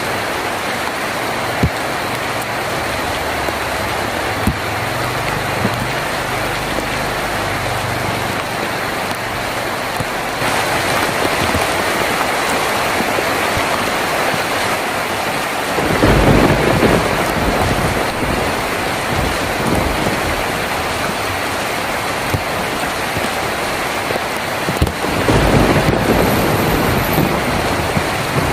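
Rain on a tin roof, a steady hiss with a few sharp drip ticks, turning heavier about a third of the way in. Deep rumbles of thunder come twice, about halfway through and near the end.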